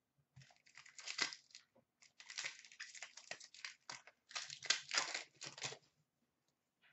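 Foil wrappers of 2015-16 Upper Deck Series 2 hockey card packs crinkling and tearing as packs are handled and opened, in several irregular runs of crackling that stop about a second before the end.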